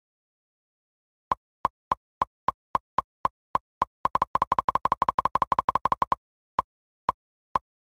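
A run of short, sharp clicks, like a scrolling tick sound effect: about three a second at first, speeding to a fast run of about nine a second, then slowing to single clicks near the end.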